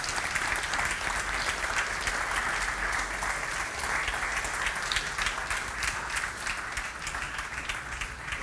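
Audience applauding: dense, steady clapping that eases off a little toward the end.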